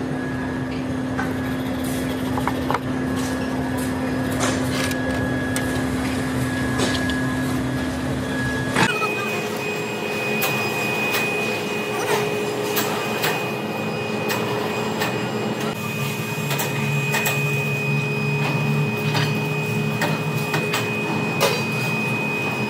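Metalworking machinery running in a machine shop: a steady hum with scattered clicks and metallic knocks. About nine seconds in the hum changes abruptly to a higher pitch.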